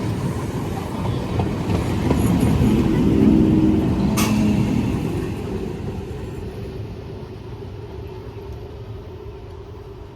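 Train passing: a low rumble that builds to its loudest about three seconds in, with a single sharp click about a second later, then fades steadily as the train draws away.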